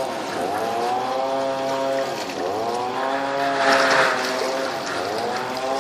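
An engine running with a steady drone, its pitch wavering slightly up and down, with a brief hiss about four seconds in.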